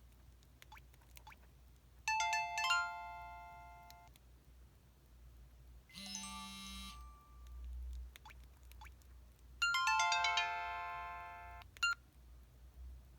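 EV-W250 Black Cube phone playing short electronic alert-tone melodies one after another: a quick chime about two seconds in, another around six seconds in, and a longer falling chime melody starting near ten seconds, with faint short blips in the gaps.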